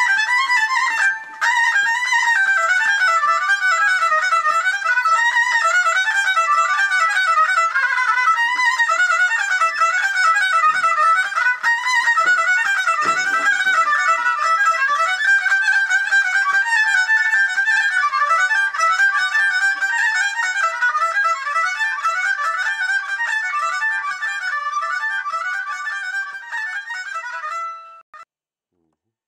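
Horn violin (vioară cu goarnă, a violin with a metal amplifying bell) bowed solo, playing a quick, densely ornamented traditional Bihor dance tune high in its register. The tune stops abruptly near the end.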